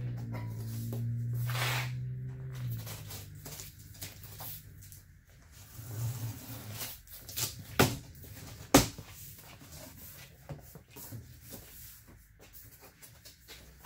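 Cardboard packaging being opened and handled: scattered rustles and light knocks, with two sharp clicks about a second apart near the middle. A low steady hum runs for the first few seconds.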